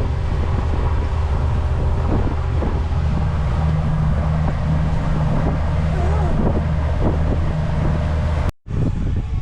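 Deck boat's engine running steadily underway, a low even hum, with wind buffeting the microphone. It breaks off suddenly near the end.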